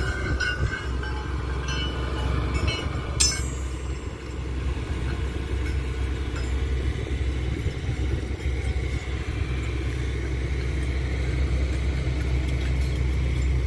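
Diesel excavator running at a railway sleeper-laying job, with a few sharp metallic clanks in the first three seconds, the loudest about three seconds in. After that only a steady low engine rumble continues.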